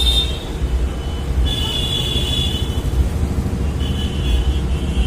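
Road traffic running steadily, with vehicle horns honking three times: once at the start, once about a second and a half in, and again near the end.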